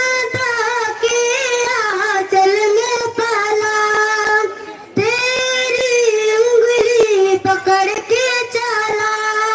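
A child singing solo into a microphone, holding long notes with a slight waver in pitch and breaking off briefly for breath a couple of times.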